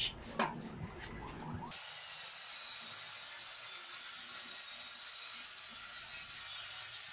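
A few knocks as a Makita M-series circular saw with a 60-tooth blade is handled on the plywood, then about two seconds in the saw starts and runs steadily through the plywood, a steady high whine.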